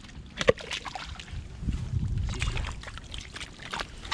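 Clam digging in wet tidal mud: scraping, squelching and splashing of a digging tool and boots in mud and water. There is a sharp knock about half a second in, and a low rumble through the middle.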